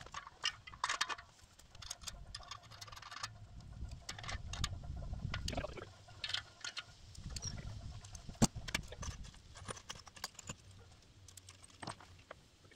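Scattered clicks and light metal clinks as parts of a steel solar-tracker post are handled, with footsteps on dry ground and a low rumble in between; one sharper click about two-thirds of the way through.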